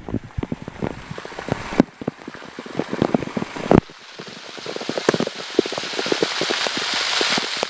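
Waterfall water pouring and splashing, a dense rain-like patter of small splashes over a steady rush. The rush grows louder toward the end.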